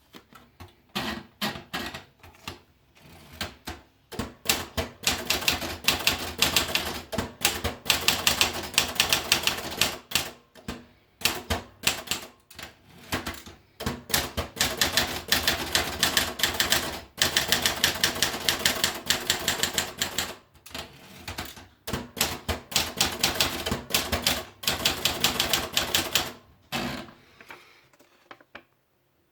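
Erika model 50/60 manual portable typewriter being typed on: runs of fast, sharp keystrokes broken by short pauses, stopping near the end.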